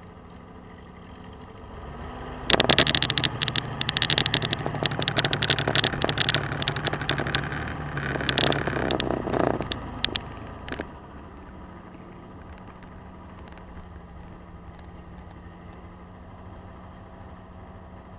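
Truck engine picked up by a camera mounted on its hood: about two and a half seconds in it revs up hard, loud and rattling with crackling wind buffeting on the microphone, then around ten seconds in it drops back to a steady, quieter run.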